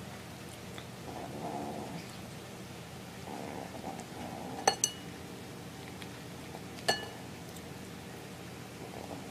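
A cat making two low, drawn-out vocal sounds while eating, about a second in and again about three seconds in. Three sharp clinks of the plate, two close together about halfway through and one a couple of seconds later.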